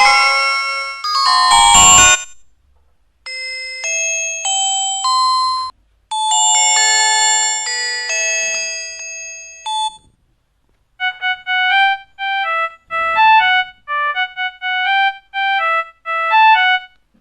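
A run of synthesized mobile-phone ringtones and system jingles, one after another with short gaps. A loud busy tune ends about two seconds in, two slower chime melodies follow, and from about eleven seconds comes a quick string of short beeping notes.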